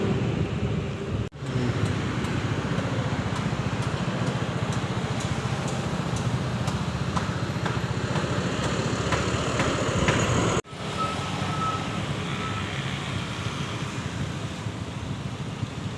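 Road traffic: steady rumble of passing motor vehicles, engines and tyres. The sound drops out abruptly twice, about a second in and near the middle.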